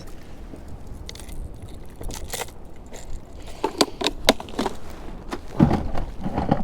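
Fishing gear being handled on a kayak: a run of sharp clicks and rattles that thickens about four seconds in, then a few louder, duller knocks near the end.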